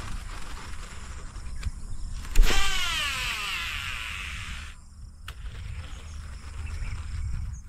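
A fishing reel's spool whirring as a lure is cast: a sudden swish, then a whine that falls steadily in pitch as the spool slows, cut off sharply about two seconds later, followed by a single click. Wind rumbles on the microphone throughout.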